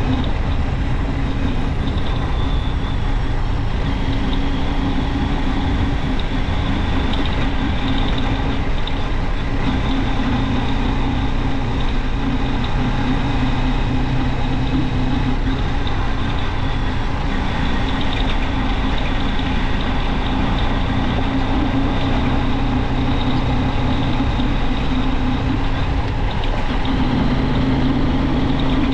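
Junak M12 motorcycle engine running steadily while riding at an even speed, with road and wind noise.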